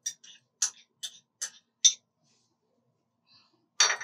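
A spoon tapping against the rim of a food-processor bowl to knock spice paste off it: light, sharp clicks about two to three a second, stopping about two seconds in. Near the end comes a louder clatter of kitchenware.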